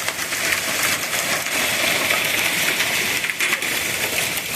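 Hail and heavy rain pelting down: a steady hiss studded with many small, sharp hailstone impacts.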